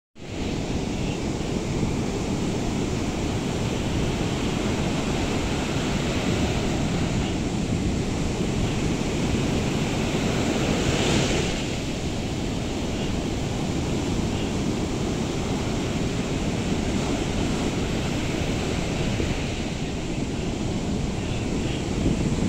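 Ocean surf breaking and washing up the beach in a continuous rush, swelling a little louder about halfway through.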